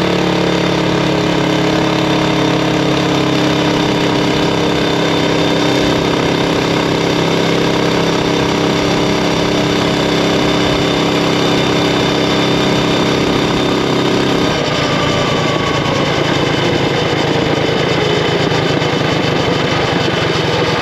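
Predator Ghost 212cc single-cylinder four-stroke engine on a mini bike running at a steady high speed under load. About two-thirds of the way through, the even engine note breaks and turns rougher, with the pitch shifting as the throttle changes.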